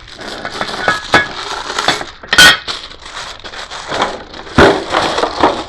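Packaging rustling and crinkling while metal office-chair base parts knock and clink against each other, with irregular sharp knocks, the loudest about two and a half seconds in and again past four and a half.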